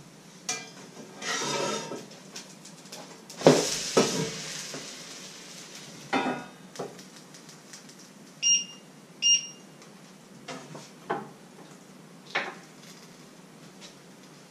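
Kitchen clatter at a stove: a spatula and frying pan scraping and clanking, the loudest clank about three and a half seconds in, with more knocks spread through. Two short electronic beeps sound near the middle.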